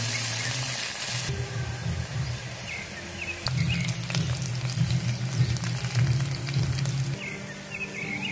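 Sliced onions sizzling in hot oil in an aluminium pressure cooker, with a few clicks of a wooden spatula against the pot. The sizzle is loudest in the first second. A low steady hum of tones and a few short chirps run underneath.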